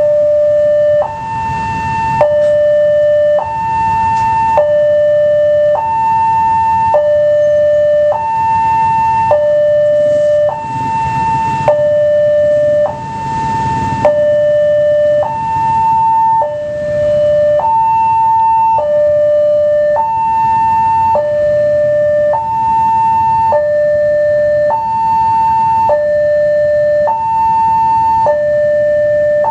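Railway level-crossing warning alarm sounding, an electronic two-tone signal switching between a high and a low note a little over once a second, with a faint steady higher tone alongside: the crossing's warning that a train is approaching. Motorcycle and car engines idle underneath.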